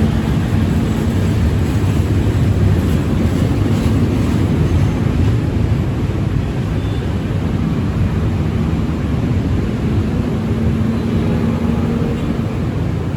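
Train moving through a station: a steady, loud low rumble with a faint hum that comes and goes, easing slightly toward the end.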